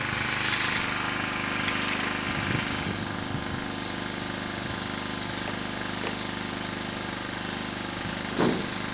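A small engine running steadily, with a short louder sound about eight seconds in.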